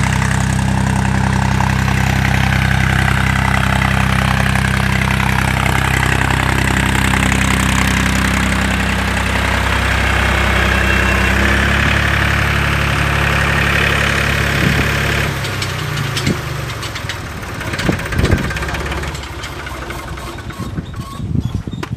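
Force OX25 Orchard tractor's diesel engine running steadily while driving a 20 kW alternator off its PTO. Its note shifts about halfway through, and about two thirds in the engine sound falls away, leaving a few knocks.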